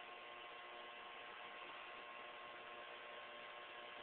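Emerson countertop microwave oven running on power from an inverter, cooking: a faint, steady electrical hum with a few high, steady tones.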